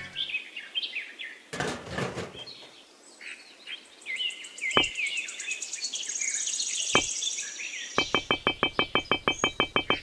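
Small songbirds chirping and twittering, with two sharp knocks in the middle. Near the end comes a fast, even run of clicks, about nine a second.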